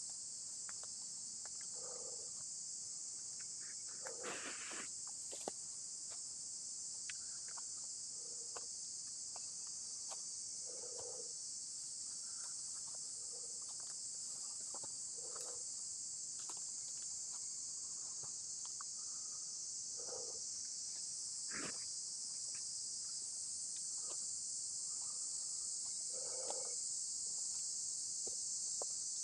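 A steady, high-pitched insect chorus drones without a break, with soft footsteps crunching through dry leaf litter now and then and a few small twig snaps.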